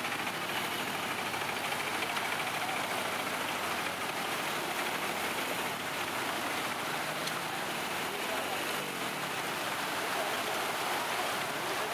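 Floodwater rushing across a road: a steady, even rush of fast-moving water.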